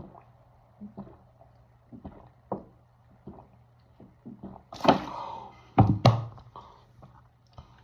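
Soda-chugging sounds: scattered small gulping clicks, then a breathy rush about five seconds in, followed by two heavy thuds in quick succession.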